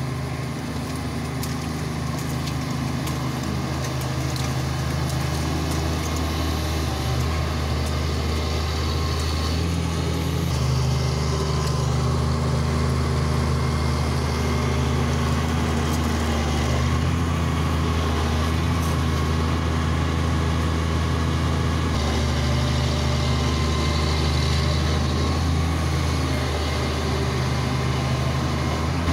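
Hitachi Zaxis 350 excavator's diesel engine running steadily with a deep, even hum, growing slightly stronger about ten seconds in.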